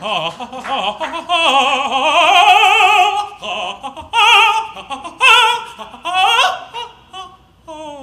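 A singer's operatic-style vocalise into a microphone: one long high note with wide vibrato, then several shorter held notes and a quick upward swoop.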